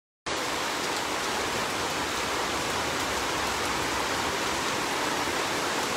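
Heavy torrential rain pouring steadily onto floodwater and trees.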